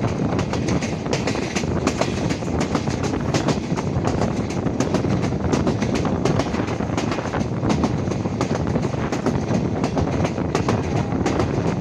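Steady rumble and rattle of a moving vehicle, heard from on board, with many irregular clicks and knocks.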